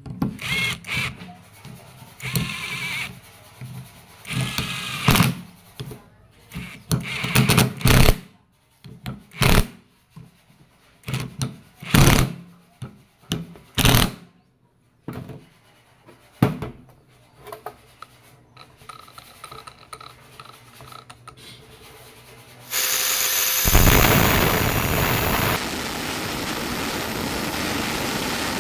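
Cordless drill-driver running in short bursts as it drives bolts into a steel plate on a gearbox. About 23 seconds in an angle grinder starts and runs steadily, its cutting disc grinding through a metal shaft clamped in a vise.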